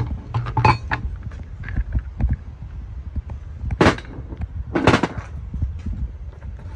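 Metal motor parts clanking and knocking as they are handled and set down on a metal workbench, a string of small clicks with two louder clanks about four and five seconds in.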